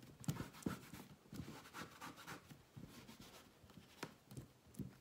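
Fingertips rubbing denim fabric against a painted wooden box: faint, irregular scratching and rustling of the cloth, in short strokes a few times a second.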